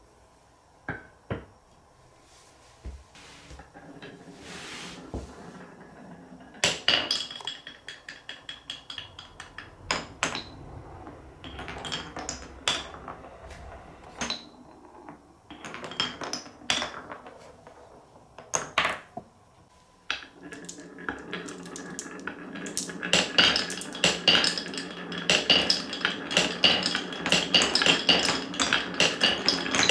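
Glass marbles rolling and clacking through a wooden Cuboro marble run: scattered knocks and short rolling runs at first. About two-thirds of the way in, several marbles run down a wavy wooden slope together, giving a dense stream of clicks over a steady rolling ring.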